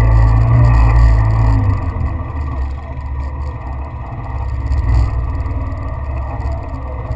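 Vehicle running with a loud, low rumble, strongest for about the first two seconds and then easing to a lower, uneven level.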